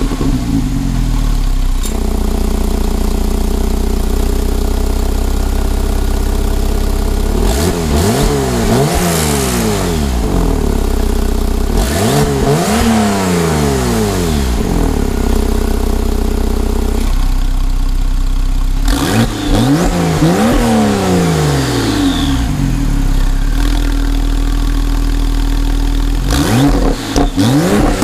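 Porsche 911 Carrera T's twin-turbo flat-six idling and free-revved several times while parked, each rev climbing and falling back to idle. The sports exhaust valves are closed (normal mode), so this is its quieter exhaust note.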